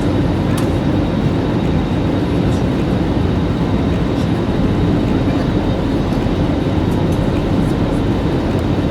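Steady, even drone of an airliner's jet engines and airflow heard inside the passenger cabin during the climb after takeoff.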